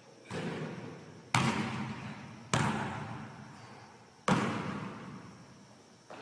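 A basketball hitting hard surfaces about five times, one to two seconds apart, the middle three impacts loudest. Each impact rings out in a long echo through the gym.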